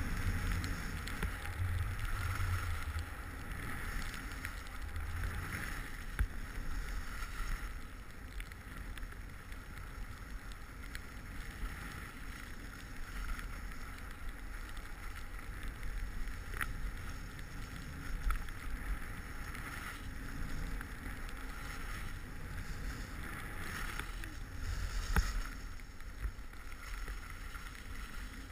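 Skis sliding and scraping over snow, with wind rumbling on the microphone. A few sharp clicks stand out, the loudest near the end.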